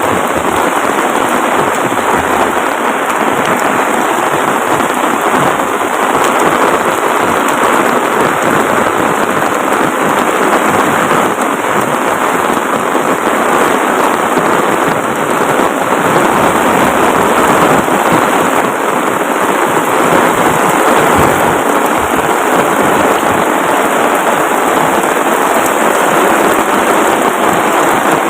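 Heavy rain pouring down steadily, a loud, dense, unbroken hiss of falling drops.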